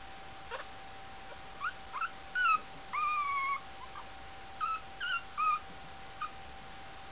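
A month-old puppy whimpering: a string of short, high whines, with one longer drawn-out whine about three seconds in.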